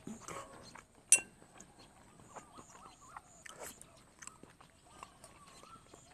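A metal spoon clinks sharply against a ceramic bowl about a second in, among quieter chewing and small spoon scrapes and clicks. Faint short warbling calls sound in the background several times.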